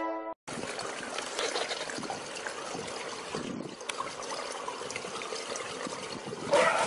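Swimming-pool water splashing and lapping as a swimmer moves through it, a steady watery hiss.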